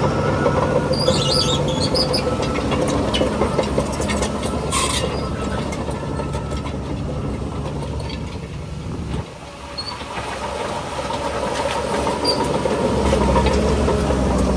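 Shantui DH17C2 crawler bulldozer's diesel engine running steadily while its steel tracks squeal and clank, dipping briefly about nine seconds in.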